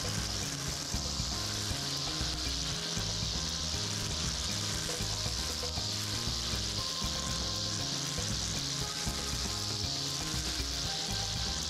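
Makita 80Vmax cordless brush cutter with a nylon cutting cord, the spinning line cutting grass high above the ground with a steady hiss.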